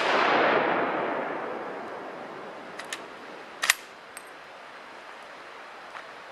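The echo of a Mauser K98 rifle shot (7.92×57 mm) rolling through the forest and fading over about two seconds, then a few sharp metallic clacks as the bolt is worked, the loudest about three and a half seconds in.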